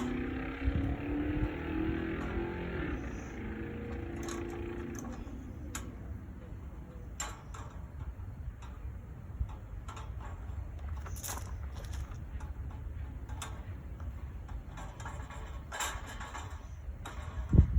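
A vehicle engine running, its pitch falling as it fades out over the first few seconds, over a steady low rumble. Then scattered sharp clicks and knocks of metal work, the loudest a knock near the end.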